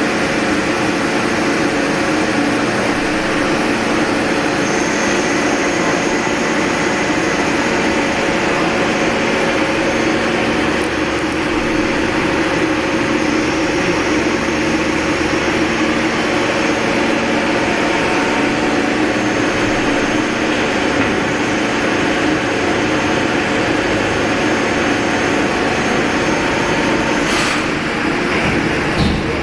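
CNC lathe running steadily, a constant mechanical hiss and whine with several steady tones, with a couple of short clicks near the end.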